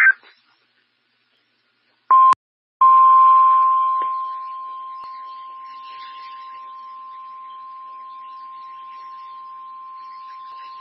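NOAA Weather Radio warning alarm tone: a single steady high tone of about 1050 Hz, with a short blip of it about two seconds in and then the long tone from about three seconds in, over faint static hiss. It starts loud and drops off over the next few seconds, then holds steady. The tone signals that an urgent warning broadcast, here a flash flood warning, is about to follow.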